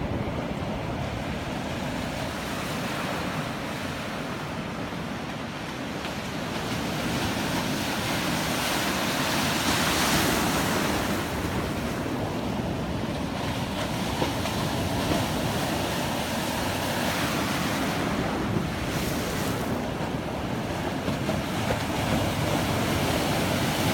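Stormy Black Sea surf: waves breaking in long, rising and falling surges, with wind buffeting the microphone.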